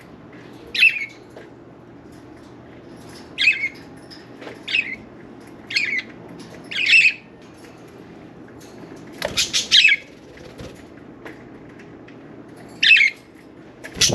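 Budgerigars giving short, sharp chirping calls, spaced a second or two apart, with a quick run of several notes a little past the middle.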